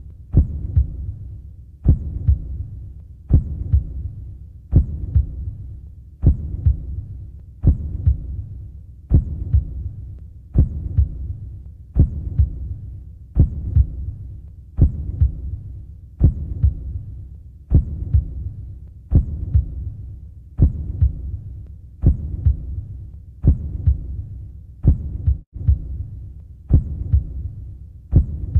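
Heartbeat sound effect: a slow, low thump about every second and a half, each fading into a low hum.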